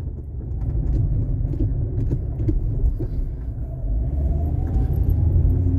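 Car driving, heard from inside the cabin: a steady low road and engine rumble, with a faint tone rising slowly in the second half as the car picks up speed.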